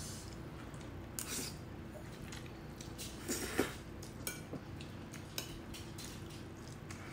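Close-up eating sounds: a metal fork clinking and scraping in a ceramic bowl of jjajangmyeon noodles, with the noodles being slurped and chewed. There are short scattered sounds, with the loudest cluster about halfway through.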